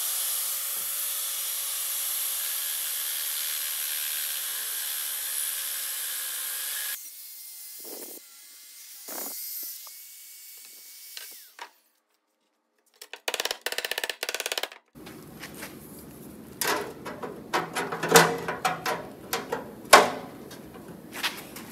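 A hand-held air-powered cutting tool spins up and runs steadily for about seven seconds, cutting a strip of sheet steel along a marked line, then stops. Later come rapid clicks, then scraping and knocks as the steel strip is handled and laid against the car's steel floor pan.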